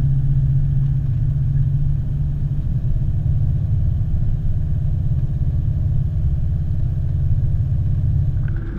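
Toyota Land Cruiser HDJ80's turbo-diesel straight-six running steadily as the 4x4 drives along a sand track, a low, even drone with no revving.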